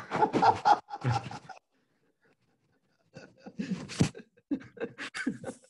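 A person's voice in two short bursts, with no words made out: one at the start lasting about a second and a half, and another from about three seconds in to the end.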